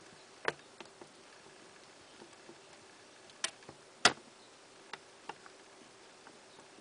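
Newborn kittens suckling at their mother, making scattered short wet clicks and smacks at irregular intervals, the loudest about four seconds in.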